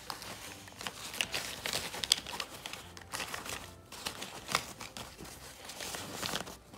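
Fabric pouch rustling and crinkling as hands push soft toy pieces into it: an irregular run of short scratchy rustles.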